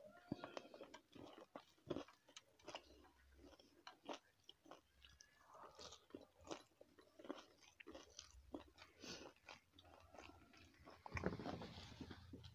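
Quiet, close-miked chewing and biting of food, with many small irregular wet mouth clicks and crunches and a louder spell of chewing near the end.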